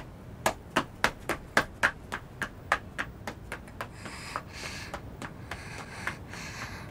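A quick run of sharp knocks, about four a second, uneven in strength, giving way after about four seconds to softer rustling with a few fainter knocks.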